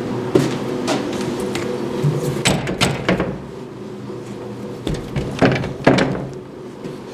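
A metal-framed glass door being handled, giving a series of knocks and rattles. They come a few at first, loudest about two and a half to three seconds in and again around five and a half to six seconds, over a steady low hum.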